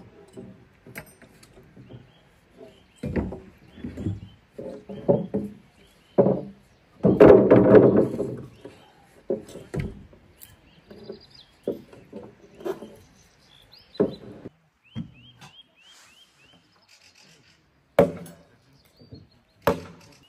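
Irregular knocks and scrapes, loudest in a longer scraping stretch about seven to eight seconds in, with a quick run of high chirps near the middle.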